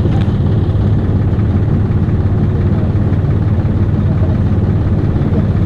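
Steady engine drone with a strong low hum and rushing noise, unchanging throughout.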